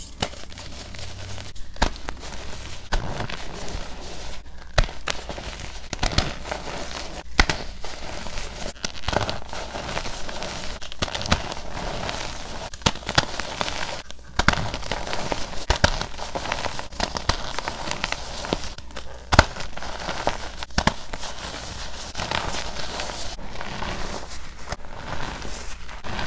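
Hands crushing flower-shaped blocks of reformed gym chalk into a bed of loose chalk powder: continuous crunching and crackling, with many sharp snaps as the pieces break apart and crumble.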